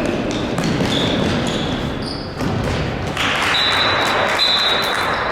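Handball game in a sports hall: the ball bouncing and thudding on the court amid general play noise, with several short, high, flat squeals (shoes on the floor or a whistle), the longest about three and a half seconds in.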